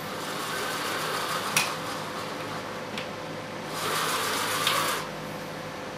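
Levolor cordless cellular shade being raised and lowered by hand: the pleated fabric rustles as it moves, with a few light clicks from the rail and spring mechanism. The rustling is loudest for about a second around four seconds in.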